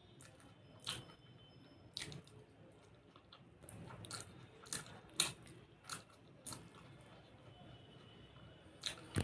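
Close-miked person chewing food, with irregular wet smacks and clicks of the mouth.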